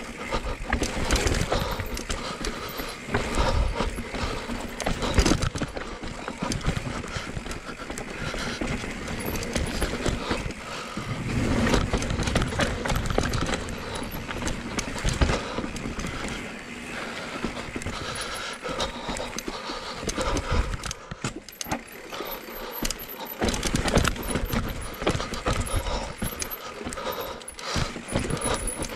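Cube Stereo 170 full-suspension enduro mountain bike running down a rocky forest trail: tyres on dirt and rock with an irregular clatter of knocks and rattles over the bumps, easing briefly about two-thirds of the way through.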